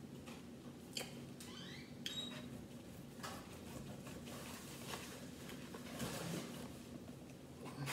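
Eating sounds: chewing, with scattered light clicks and scrapes of a knife and fork on a plate as duck meat is cut and pulled apart.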